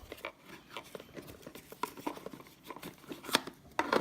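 Opening and handling a Zippo lighter's presentation box: light rustling of cardboard and packaging with scattered small clicks, one sharper click a little after three seconds in.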